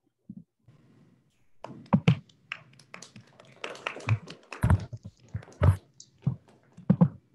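A run of irregular taps and knocks that starts about a second and a half in and goes on to near the end, with a few dull thumps among them.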